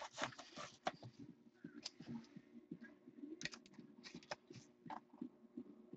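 Hands handling a freshly opened trading-card box and its contents: scattered soft clicks and taps of cardboard and card cases, over a faint steady hum.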